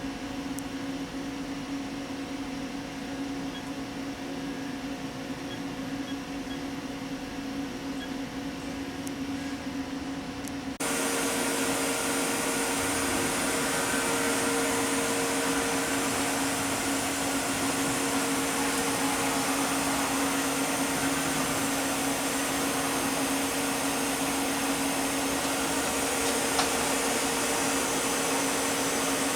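Haas HS-1 CNC horizontal machining center running with a steady machine hum. About eleven seconds in, a louder, steady whirring with a hiss cuts in abruptly and carries on.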